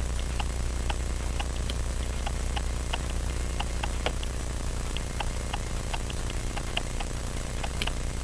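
Small, sharp metal clicks and taps of tools working on a wristwatch movement, irregular at about two to three a second, as the hairspring stud is worked loose. A steady low hum runs underneath.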